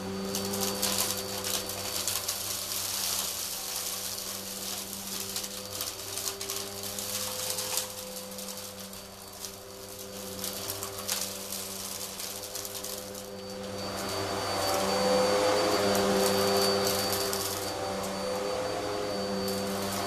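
Vax Zoom Pet U87-ZM-P upright vacuum cleaner's 1800 W motor running steadily with a thin high whine as it is pushed back and forth over carpet. Grit and cat litter crackle as they are sucked up during the first half. The sound grows louder about two-thirds of the way through.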